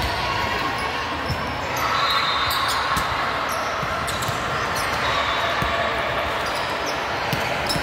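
Volleyball rally on a hardwood gym floor: scattered sharp hits of the ball and squeaks of players' shoes over a constant hubbub of voices, echoing in the large hall.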